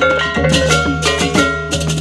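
Balinese balaganjur gamelan playing: hand-held reyong kettle gongs struck with beaters in dense, fast interlocking strikes, over cymbal crashes and the sustained low hum of large hanging gongs.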